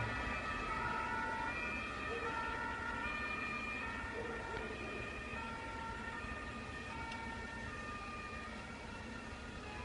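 Two-tone sirens of a municipal police car and an ambulance, sounding a high note and a low note in turn and slowly growing fainter as the vehicles move away.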